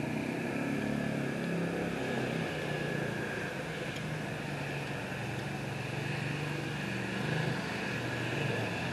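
Steady machine drone: a low hum with a hiss above it, unchanging throughout.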